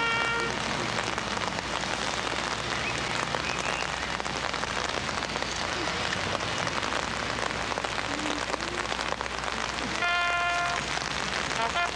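Steady rain falling, an even hiss. A held note from a wind instrument fades out about half a second in, and higher held notes sound again near the end.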